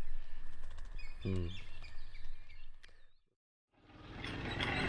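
Outdoor background noise with birds chirping and a brief low pitched call or voice about a second in. It fades out to silence about three seconds in, and another steady outdoor sound fades back in near the end.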